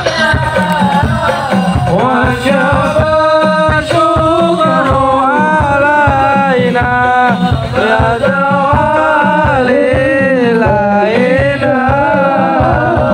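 Live music over a stage sound system: men singing a melody with long, ornamented slides in pitch over a steady drum beat.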